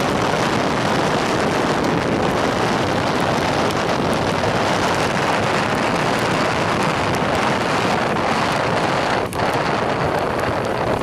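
Heavy, steady wind rush buffeting the microphone, with a brief dip about nine seconds in.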